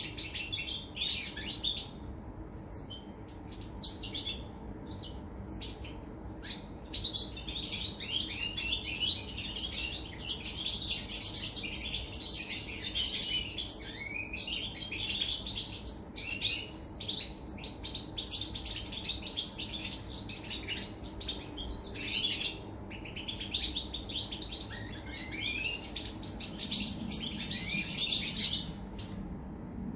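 European goldfinch singing a long, fast twittering song of quick chirps and trills. The notes come in short scattered bursts at first, then run almost continuously for most of the stretch.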